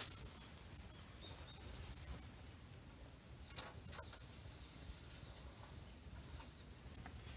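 Faint outdoor ambience with thin, high-pitched animal calls repeating every second or so, and a couple of soft clicks in the middle.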